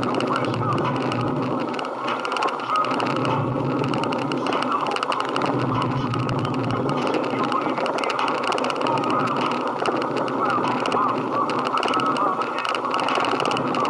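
Continuous din of many voices talking at once, mixed with vehicle noise.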